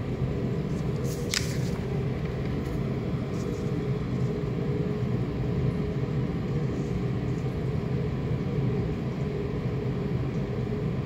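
Steady low rumble and hum of room background noise, with a brief sheet of paper rustling about a second in.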